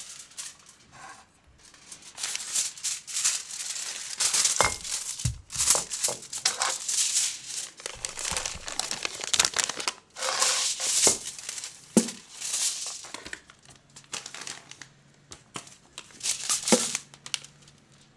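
Aluminium foil wrapper of a chocolate bar being unfolded and crinkled by hand, in irregular bursts of crackling with short pauses.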